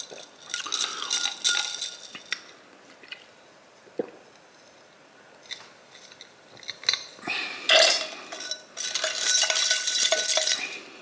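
Glass straw stirring in a drinking glass with ice, clinking and scraping against the glass. It comes in two spells, a short one and a longer one of about three seconds in the second half.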